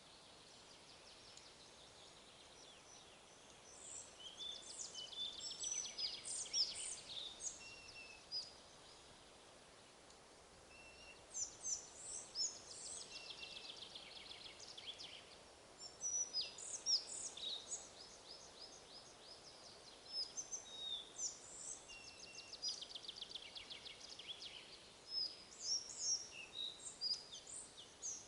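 Songbirds singing in several bouts of quick high chirps and fast trills, over a steady hiss of wind.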